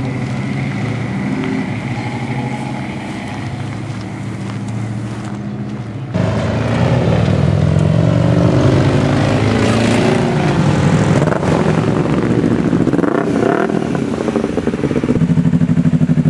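Motorcycle engine running steadily at idle; about six seconds in it suddenly gets louder and its pitch rises and falls for several seconds, then it settles back to a steady, pulsing run near the end.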